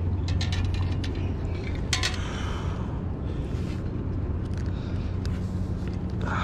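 Steady low hum with a few sharp clicks and rustles as a freshly caught spotted bay bass is picked up off concrete and the underspin's hook is worked out of its mouth.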